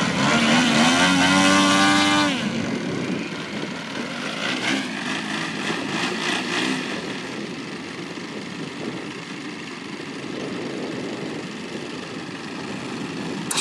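Engines of large radio-controlled model aircraft running on the ground with propellers turning. One revs up with a rising pitch for about two seconds and then drops away, leaving a quieter steady engine running with a thin high whine from about four seconds in.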